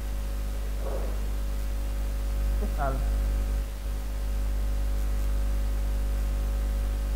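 Steady electrical mains hum, low and constant, with a row of fainter steady higher tones over it; a single short spoken word breaks in about three seconds in.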